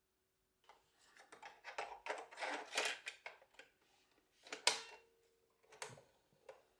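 Plastic clicking and rattling as a cassette tape is slotted into the tape door of an ANAM portable radio-cassette recorder, then a sharp snap as the door is pushed shut about four and a half seconds in, followed by two lighter clicks of its piano-key buttons being pressed.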